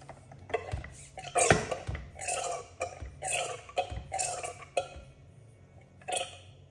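Fork oil gurgling as it is drained out of a Honda Grom front fork tube, in an irregular run of about ten short wet bursts with pauses between them.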